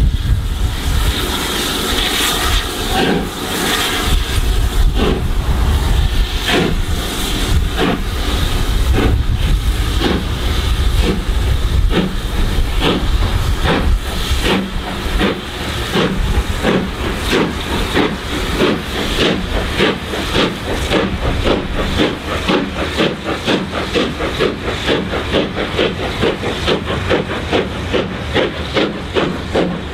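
LNER B1 class two-cylinder 4-6-0 steam locomotive 61306 Mayflower pulling a passenger train away, its exhaust beats quickening steadily as it accelerates, over a hiss of steam.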